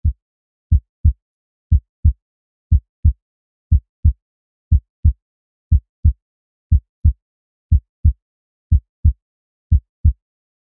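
Heartbeat sound effect: pairs of dull low thumps, lub-dub, about one beat a second with silence between the beats.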